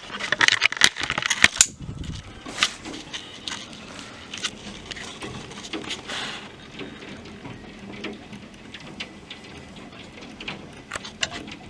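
Thunderstorm rain pattering, with many sharp clicks and knocks of things striking. The clicks come thickest and loudest in the first two seconds, then scatter over a steady hiss.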